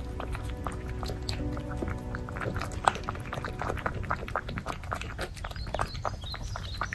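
A puppy eating from a bowl: a quick, irregular run of small chewing and mouth clicks.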